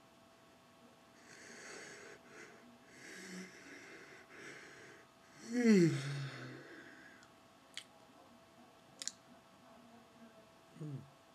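A man's long, exaggerated yawn: several seconds of breathy inhaling, then, about halfway through, a loud vocal sound that falls in pitch and is held briefly. Two sharp clicks follow, and a shorter falling vocal sound comes near the end.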